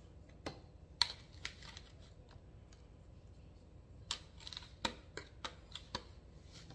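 Metal spoon scooping cane sugar from a jar into a measuring cup: a string of light, irregular clicks and scrapes as the spoon knocks against the jar and cup, the loudest about a second in.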